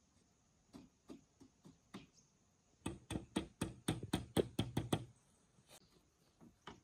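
Hard knocking strikes: a few spaced blows, then a fast run of about ten at roughly five a second, then two more near the end.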